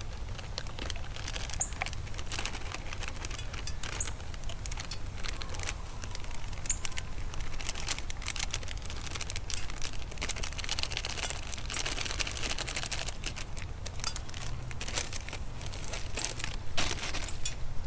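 Plastic zip-top bag crinkling and rustling as pancake mix is handled and emptied out of it, with many small scattered clicks over a low steady rumble.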